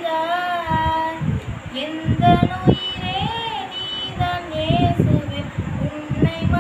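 A girl singing solo, a single melodic line with long held notes that bend and waver in pitch.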